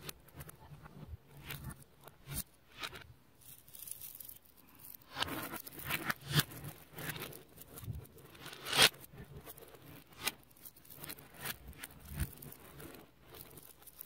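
Small neodymium magnet balls clicking and crackling as a layer is peeled off a flat sheet of them and lifted away as a strand. There is a busier run of crackling in the middle, with one sharp loud snap near the end of it.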